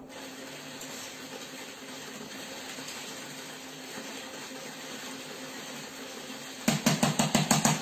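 Moulinex i-Companion XL food processor running steadily at speed 5, its whisk beating cream that is just starting to stiffen as sugar is added. Near the end comes a quick run of about nine sharp taps, a spoon knocked against the sugar dish.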